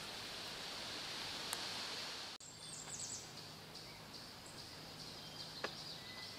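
Quiet outdoor ambience with a steady high-pitched hiss. After an abrupt cut about two seconds in, a bird gives a few quick, falling chirps.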